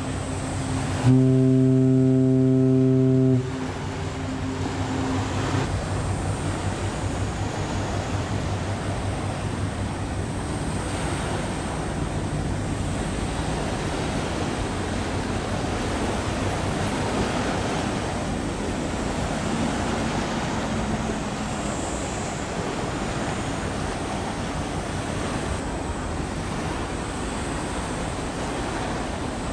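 A ship's horn sounds one deep, steady blast of a little over two seconds about a second in, echoing briefly after it stops. After it comes a steady rushing background of wind and sea.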